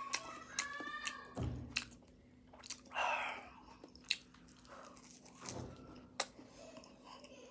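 Close-up chewing and biting of flaky pastry: wet mouth sounds broken by scattered sharp crunchy clicks.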